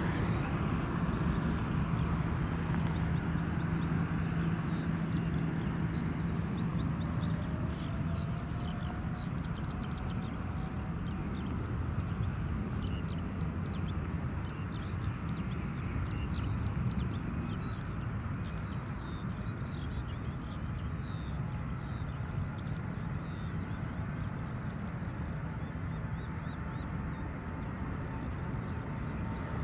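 Steady, distant rumble of a twin-engine jet airliner's engines on the runway. Small bird chirps come and go over it.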